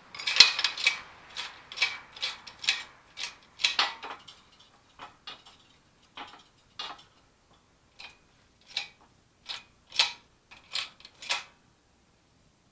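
Irregular series of sharp metallic clicks and clinks from hand tools being worked on a hub-pressing setup as it is reset. The clicks are dense for the first few seconds, then sparser.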